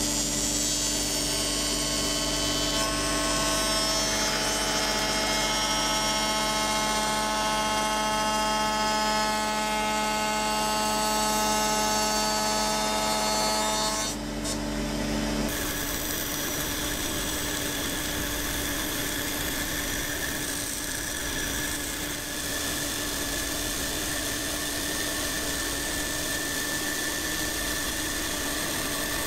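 Table-mounted router running at speed, shaping the edge of a hardwood cutting board fed past the bit by hand, with many steady whining tones. About fifteen seconds in it cuts off and a different steady machine hum takes over, a bandsaw running.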